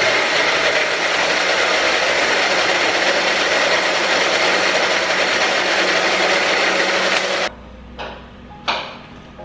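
Small personal blender running steadily with a constant whine, grinding shallots, garlic, chilies and a little water into a balado chili paste. It cuts off suddenly about seven and a half seconds in, followed by a couple of knocks as the jar is lifted off the base.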